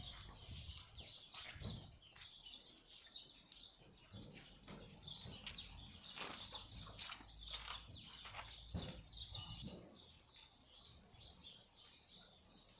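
Small birds chirping and twittering, growing fainter near the end.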